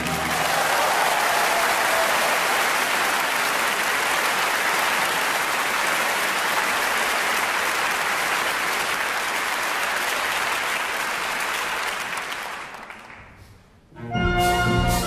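Theatre audience applauding a finished ballet variation, a long, even clapping that fades out near the end. About a second before the end the orchestra starts the next piece, brass prominent.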